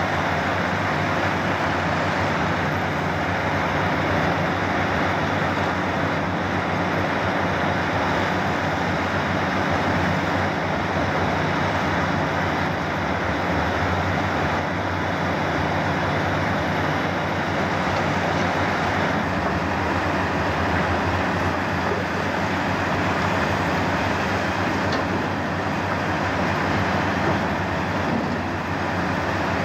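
Steady mechanical drone of heavy diesel machinery, with a low engine hum and no distinct impacts, from a Komatsu PC350 crawler excavator digging in broken rock.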